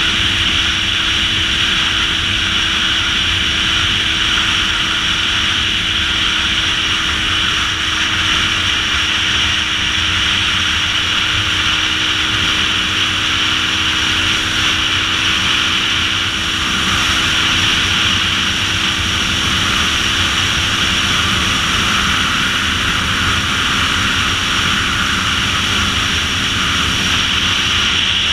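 Motorcycle cruising at steady road speed: wind rushing over the microphone, with a steady engine drone underneath.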